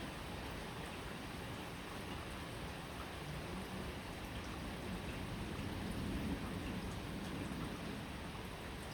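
Steady rain falling: an even hiss of rain with scattered small drop ticks.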